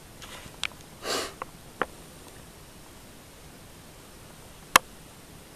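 Quiet room tone broken by a short sniff about a second in and four sharp clicks, the loudest near the end.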